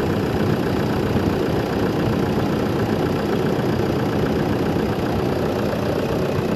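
Toyota Fortuner engine idling steadily with its serpentine belt drive running, no belt squeal heard: the squeak problem is fixed.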